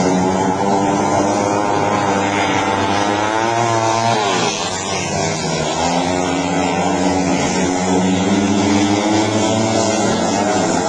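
Speedway motorcycles racing on a dirt track, their single-cylinder engines held at high revs, the pitch dipping and then climbing again about four seconds in as the throttles are eased and reopened.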